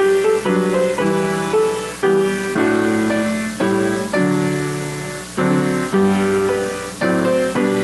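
Piano playing a steady run of chords, each struck and left to fade before the next.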